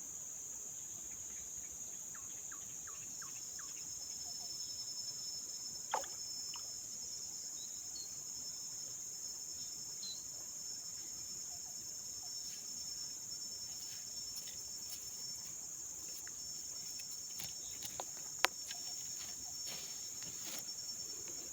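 A steady, high-pitched chorus of insects, with a thin steady tone joining about four seconds in. Scattered small clicks and knocks sound through it, the two sharpest about 6 and 18 seconds in.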